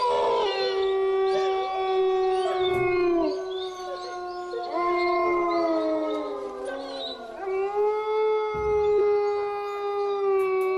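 A dog howling in long drawn-out notes held on one pitch. The pitch sags downward near the middle, and a fresh howl starts about seven and a half seconds in.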